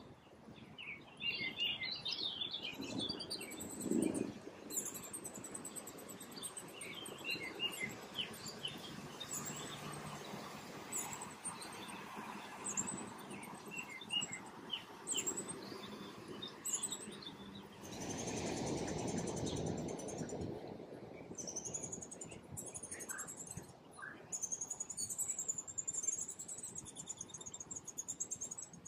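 Songbirds chirping and calling in many short, high notes over a soft background hiss, with a brief rushing noise about 18 seconds in and a thin, high trill near the end.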